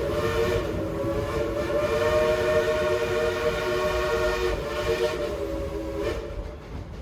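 Steam whistle of the 2-8-2 coal-fired steam locomotive No. 70 "Cinderella" blowing one long blast, a chord of several notes that wavers slightly in pitch and cuts off about six seconds in, over the low rumble of the moving train.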